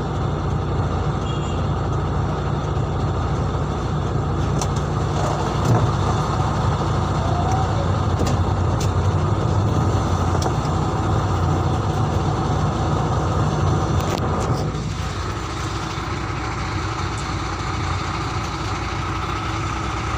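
Truck engine running steadily with road noise, heard from inside the cab while driving. About three-quarters of the way through, the noise eases a little quieter.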